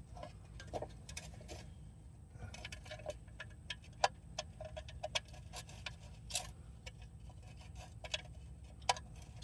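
Scattered light metallic clicks and clinks of hand tools and loose bolts being handled, irregular, with the sharpest clicks about four seconds in and near six and a half seconds, over a faint steady low hum.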